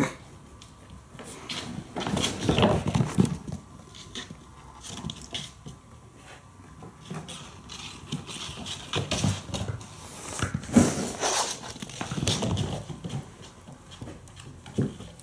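Kittens scampering and pouncing on a hardwood floor: a scatter of irregular paw patters, scuffles and light knocks as they play.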